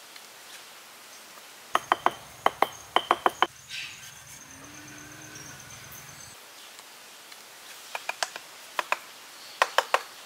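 Sharp taps on something hard, in quick clusters of two to five with a slight ring, and a quieter gap midway.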